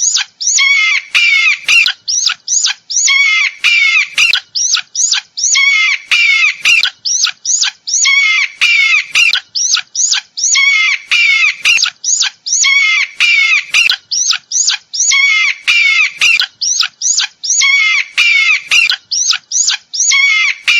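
Eagle calling: high, shrill piping notes in quick runs of several at a time, repeated over and over.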